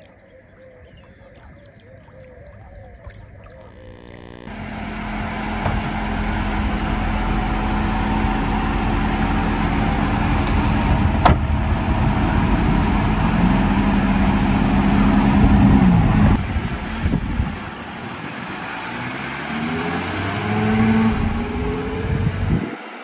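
A motor vehicle running: engine hum and road noise that start suddenly a few seconds in, with the engine pitch rising and falling twice, then cut off abruptly near the end.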